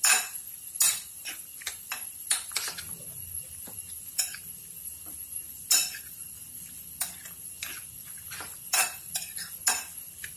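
Raw squid pieces being mixed by hand with spices and tamarind water in a glass bowl: irregular sharp clinks against the glass as the hand stirs.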